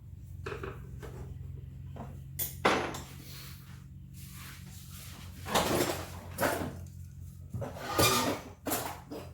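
Metal knocks and clanks as an old two-stroke ATV cylinder, stuck on after many years, is worked loose from the engine: about half a dozen sharp strikes, the loudest about two and a half and eight seconds in, over a steady low hum.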